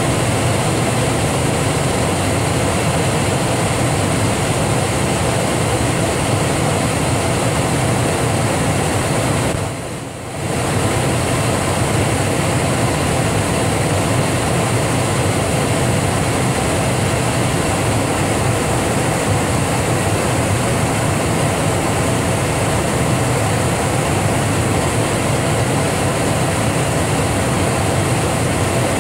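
Steady airliner cabin noise in cruise flight: a constant rush of engine and airflow over a low hum. It drops briefly about ten seconds in, then returns at the same level.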